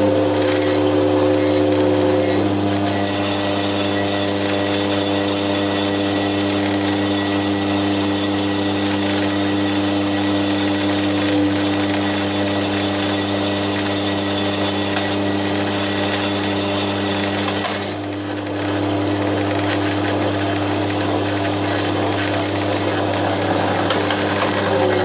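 Milling machine running steadily while milling the edge of a cast iron bandsaw table: a steady low hum with several fixed tones and a high whine. The sound dips briefly about eighteen seconds in.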